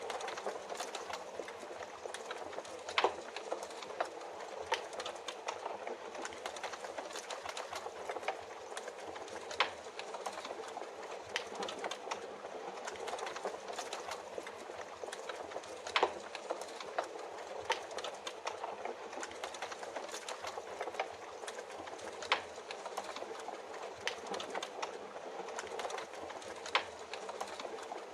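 Rain and wood-fire ambience: a steady hiss of rain under a fireplace's constant crackle, with a few louder pops from the burning wood.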